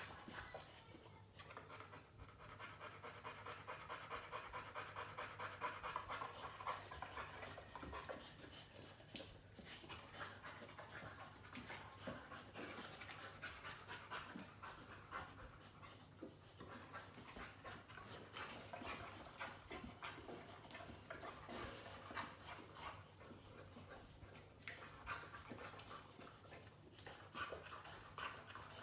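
A 9-year-old boxer recovering from knee surgery, panting steadily in rapid, even breaths.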